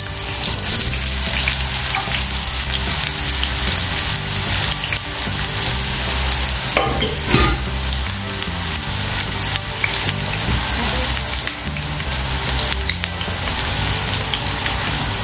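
Zucchini sizzling steadily in hot vegetable oil in a pot, with scattered clicks and knocks of a utensil stirring it, the loudest knock about seven seconds in.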